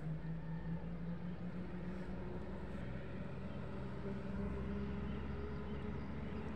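Steady drone of a motorboat engine across the water, its pitch creeping slightly higher about halfway through.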